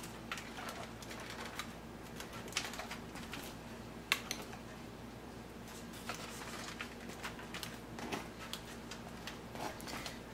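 Faint, irregular crinkling and light clicks as hands press into a crusty loaf nested in aluminium foil and a metal spoon works melted garlic butter into its cuts, with a few sharper taps, over a faint low hum.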